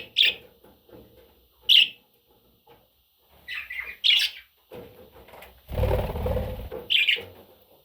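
Budgerigar giving short, sharp chirps, about five in all, spaced unevenly, with a stretch of low noise near the end.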